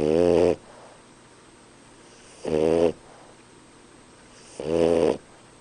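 French bulldog snoring: three snores, each about half a second long, coming roughly every two seconds.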